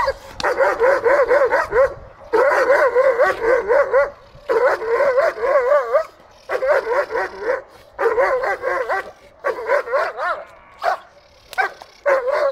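Young German Shepherd barking in rapid, high-pitched runs of about a second and a half each with short pauses, aimed at the training helper in protection work; the runs turn into shorter, scattered barks near the end.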